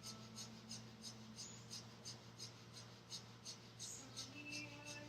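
Breath of fire: fast, even, rhythmic breathing through the nose, about three short puffs of breath a second.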